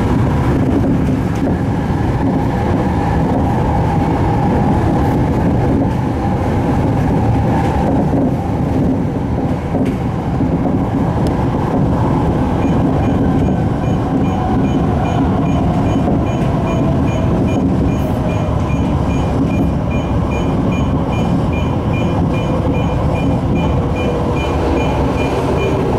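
Tokyo Metro 05N-series (Hitachi A-train) electric train running, heard from inside the car: a steady rumble of wheels on rail. In the second half the motor whine falls steadily in pitch as the train slows for the next station.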